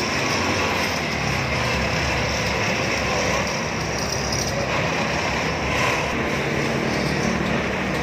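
Steady vehicle engine and traffic noise, a continuous low rumble without revving.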